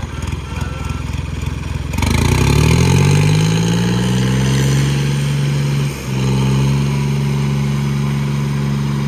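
Diesel tractor engines opened up to full throttle about two seconds in, rising in pitch and then held steady under heavy load as the hitched tractors pull against each other in a tug-of-war. The blue Ford 3600 is smoking black from its stack. There is a brief dip in the engine note around six seconds.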